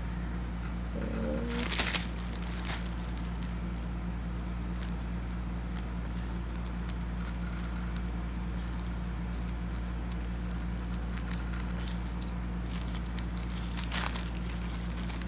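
Plastic courier pouch crinkling and crackling as it is handled and opened, with louder crackles about two seconds in and again near the end, over a steady low hum.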